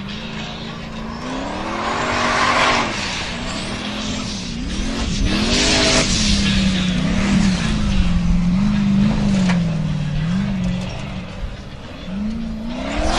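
Formula Offroad buggy's engine revving hard on a steep gravel climb, its pitch rising and falling again and again as the throttle is worked. There are two loud rushes of noise, about two and a half and six seconds in, as the spinning tyres spray dirt.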